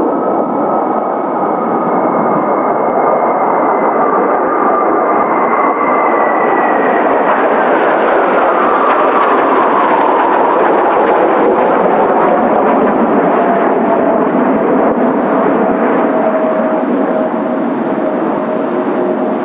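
Formation of Kawasaki T-4 jet trainers flying past with a steady jet roar. Their engine whine falls in pitch about halfway through as they pass, then holds lower.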